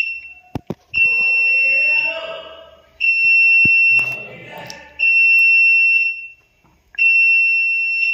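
Medical equipment alarm beeping: a steady high electronic tone about a second long, repeating every two seconds. Two short knocks come about half a second in.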